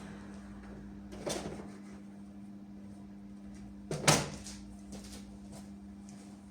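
Two short knocks, the louder and sharper one about four seconds in, over a steady low hum.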